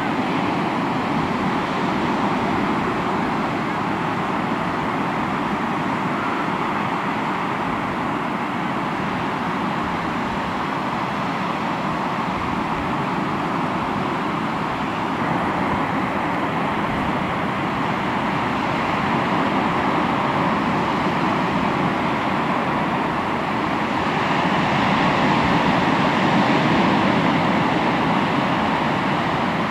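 Sea waves breaking and washing on the shore in a steady rush of surf, growing louder toward the end.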